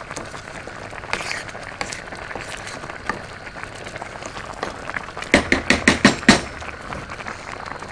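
Plastic spatula stirring rice that is simmering in water in a non-stick pot, over a steady hiss. About five seconds in comes a quick run of scrapes and knocks against the pot, lasting about a second.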